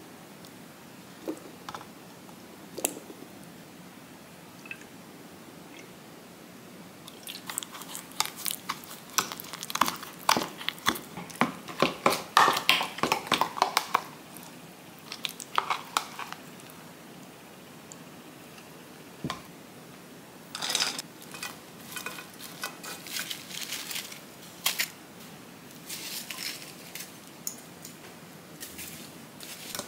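A metal spoon stirring thick gochujang sauce in a plastic measuring cup: a dense run of wet, sticky clicks and scrapes lasting several seconds, starting about a quarter of the way in. Later come scattered lighter clicks and handling sounds as sliced pork is moved into a pot with tongs.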